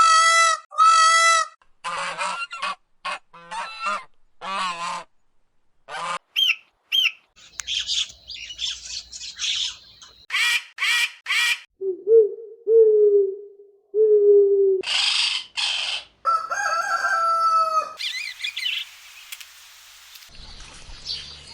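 A string of different animal calls, mostly birds, played one after another a second or two each: two strong honking calls at the start, then short squawks, chirps and song, three low, level notes about halfway, and a busy chirping stretch near the end.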